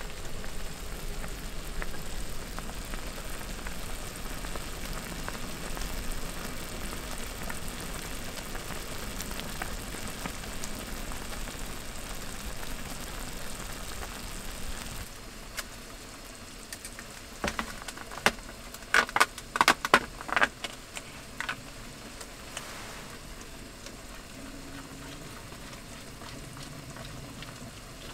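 Dumplings boiling hard in a mess tin on a cassette gas stove: a steady bubbling hiss that drops to a quieter simmer about halfway. A few seconds later comes a short run of sharp clicks and crackles.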